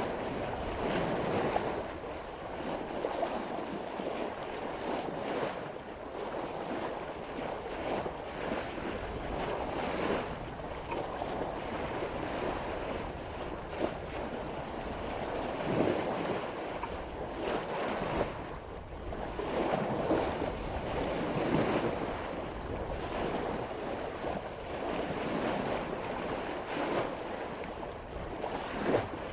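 Sea water rushing and splashing along the bow of a sailboat as the hull cuts through ocean waves at about 5 knots, swelling and easing every few seconds with each wave, with wind rumbling on the microphone.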